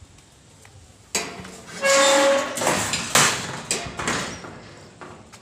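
Metal gate being pulled open: a sudden scrape about a second in, a loud squeal, then rattling and clanking metal with a few sharp knocks.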